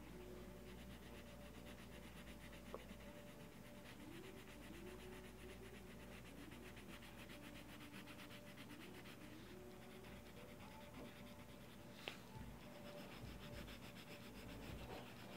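Faint scratching of a colored pencil shading on paper in quick back-and-forth strokes, with two light ticks.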